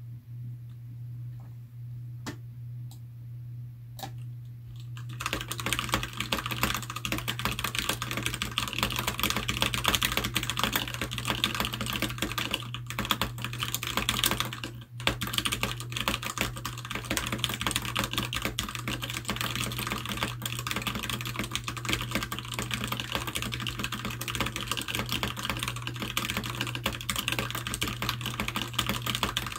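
Keychron K6 mechanical keyboard with stock, unlubed Gateron Red linear switches being typed on. A few separate keystrokes come first, then fast continuous typing starts about five seconds in, over a steady low hum.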